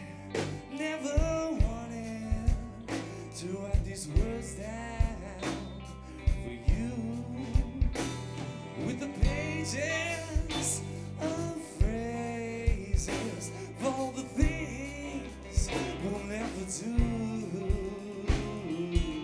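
Live rock band playing a slow song: drums with cymbal hits, bass, electric guitars, and a lead melody that bends and wavers with vibrato over them.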